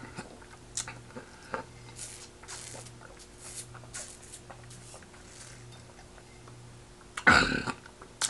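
Quiet chewing and eating: soft mouth and utensil clicks and small wet noises, with one louder noisy burst, about half a second long, around seven seconds in.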